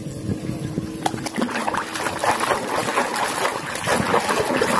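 Water splashing and sloshing in a basin as a hand scrubs a muddy toy vehicle under the surface. The splashing grows louder about a second in.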